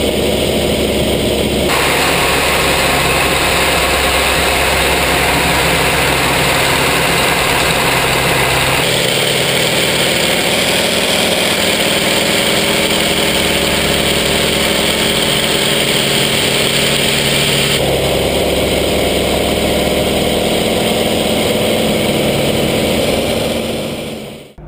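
Hawker Sea Fury's piston radial engine running hard, heard from inside the cockpit as a loud, steady drone mixed with airflow rush. It shifts in tone abruptly a few times and fades away near the end.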